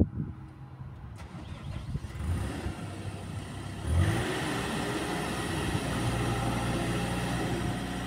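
Mecalac 8MCR midi excavator's diesel engine running, stepping up louder about four seconds in as the boom and bucket begin to move, then holding steady. A short knock at the very start.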